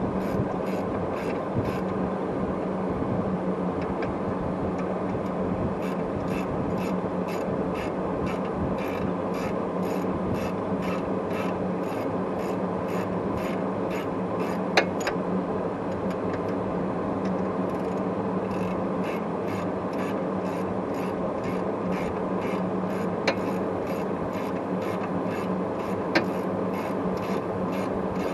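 Socket ratchet clicking in a steady back-and-forth rhythm, about two strokes a second, as a bolt at the rear wheel hub is turned. A steady low hum runs underneath.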